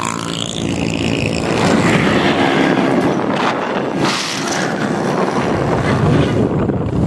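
Motorcycle riding at road speed: wind rushing over the microphone over the steady run of the engine.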